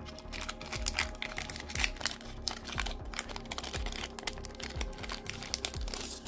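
Foil trading-card booster pack crinkling and crackling as it is torn open at its crimped seal and handled, a dense run of quick crackles. Quiet background music plays under it.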